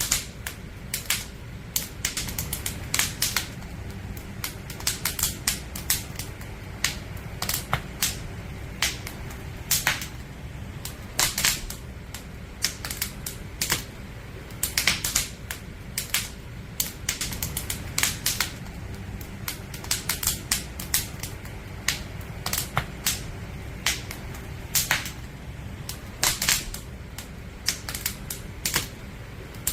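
Burning firewood crackling: irregular sharp pops and snaps, several a second, over a low steady rumble of the fire.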